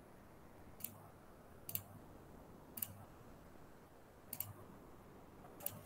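Five faint clicks of a computer mouse, about a second apart and unevenly spaced, as a slide presentation is brought up for screen sharing.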